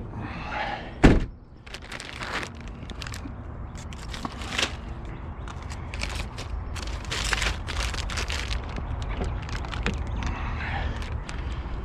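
A single loud thump about a second in, then scattered knocks, clicks and rustling handling noises over a steady low rumble that grows slightly louder in the second half.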